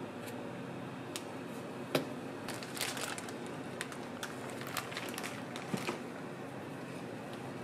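Plastic piping bag crinkling and crackling in gloved hands as it is handled and squeezed to pipe cream, with scattered small clicks through the middle of the stretch, over a steady background hum.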